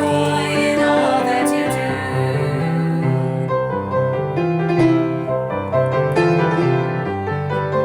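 Instrumental music led by piano: chords and melody over sustained low notes, with no singing.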